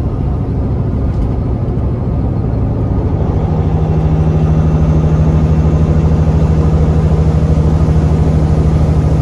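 The Caterpillar C15 diesel of a 2011 Peterbilt 389 running as the truck drives, heard from inside the cab. About three seconds in, the engine gets a little louder and settles into a steady, even hum.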